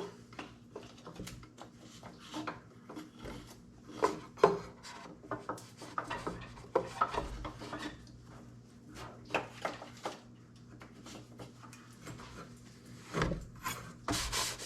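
Hands working on a compact tractor's engine parts: scattered clicks, light knocks and rubbing at an uneven pace, over a faint steady hum.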